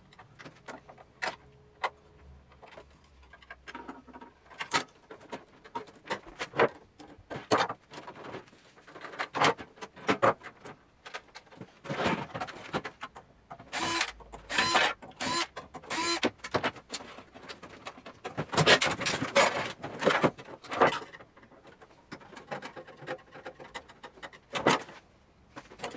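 Clicks, knocks and metallic clatter of a microwave oven being taken apart by hand: wire connectors pulled off and the sheet-metal casing shifted and scraped on the bench while the transformer is worked free. The clatter gets busier and louder in the middle, with some short ringing metal scrapes.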